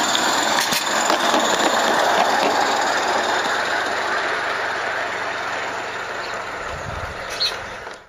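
16mm-scale live-steam garden railway locomotive running with its carriages: a steady hiss of steam and running noise that slowly fades. There is one short, high squeak near the end.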